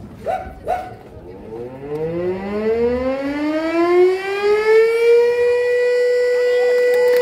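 Fire station siren winding up: its tone rises steadily in pitch for about four seconds, then settles into a loud steady wail.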